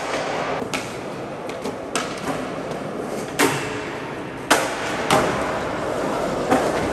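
Skateboard wheels rolling on concrete, with several sharp clacks of boards popping and landing and a trick onto a metal flat bar, in a concrete parking garage.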